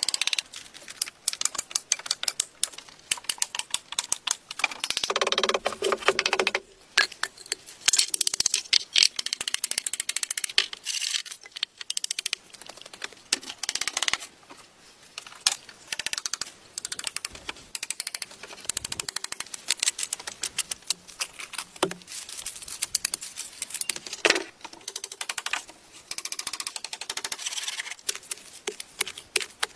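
Rapid clicks and knocks of hand-tool work on wooden boards and timber, coming in quick runs with short pauses, with a brief hum about five to six seconds in.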